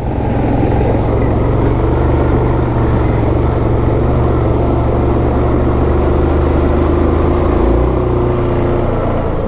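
Yamaha Grizzly 700 ATV's single-cylinder engine running steadily under way on a trail, its note shifting slightly about eight seconds in.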